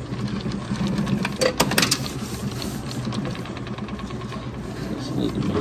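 A steady low mechanical hum, with a few sharp clicks a little over a second in.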